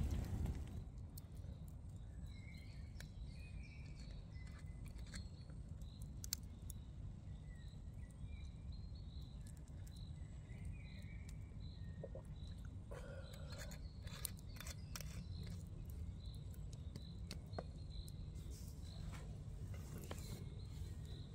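Forest ambience: birds calling, one repeating a short high note over and over, above a steady low rumble, with scattered faint clicks.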